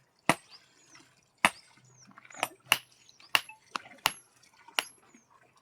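Sharp, irregular hammer blows on stone, about eight in a few seconds, some with a bright ring: masons dressing stone for masonry work.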